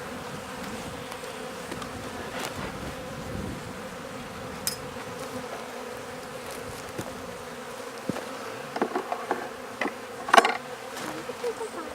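Honey bees humming steadily inside an opened Langstroth-style hive. A few sharp clicks and knocks come near the end, one loudest about ten seconds in.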